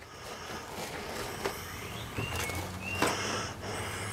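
Rummaging on a shelf of hand tools: a cloth rag being handled and light clicks and knocks of metal tools, with a few short high chirps about two seconds in.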